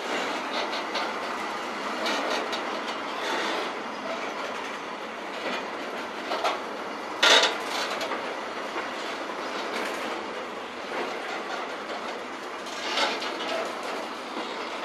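A train rolling close past, its wheels making a steady rushing noise and clacking over rail joints, with one sharp, loud clack about seven seconds in. The recording has little deep rumble.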